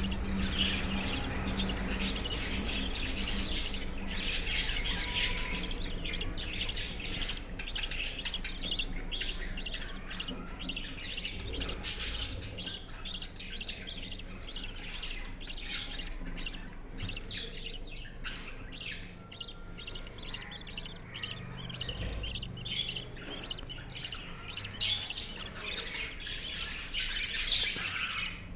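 Budgerigars chirping and warbling continuously, a dense run of short high chirps and chatter.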